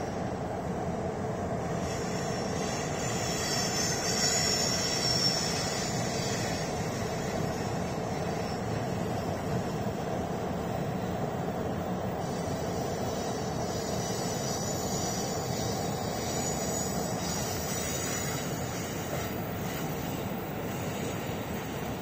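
Amtrak passenger train passing, led by an electric locomotive: a steady rumble of wheels on the rails, with faint high wheel squeals from about two seconds in and again later.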